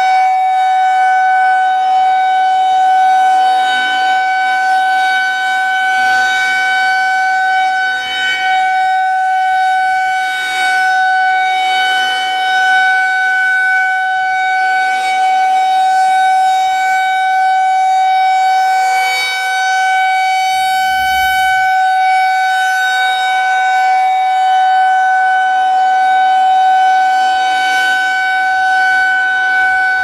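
Federal Signal 2001-130 rotating outdoor warning siren sounding a steady, single-pitched alert tone for a test. Its horn turns on the pole, so the loud tone swells and fades gently as it sweeps round.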